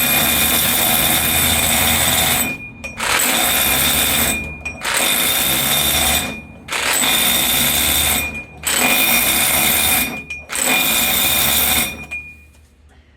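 Hammer drill running in six bursts of one to two seconds with short pauses between, its bit pounding and crushing ore as a makeshift pestle.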